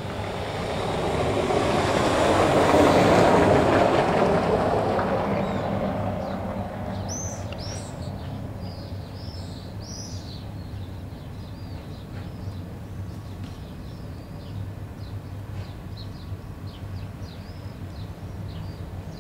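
A vehicle passing close by: a loud rushing noise that swells, peaks a few seconds in and fades away, over a low steady hum. Small birds chirp repeatedly from about seven seconds on.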